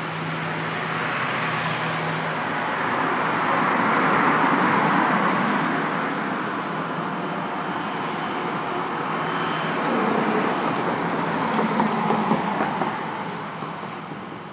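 Boeing 737-800's CFM56 turbofan engines running as the jet turns on the runway: a broad rushing engine noise that swells about four seconds in and again around ten to twelve seconds, then fades near the end.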